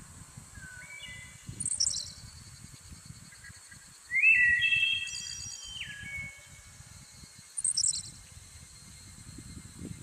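Forest birds calling over a steady high insect drone: two brief, very high chirping trills, and about four seconds in a louder whistled note held for nearly two seconds before stepping down.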